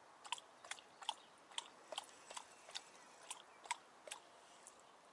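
Fixed-spool reel being wound in while playing a fish, its mechanism giving a soft, regular click about twice a second.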